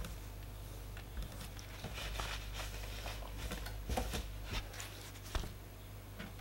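Faint, scattered taps and rustles of hands handling a partly disassembled laptop, over a low steady hum.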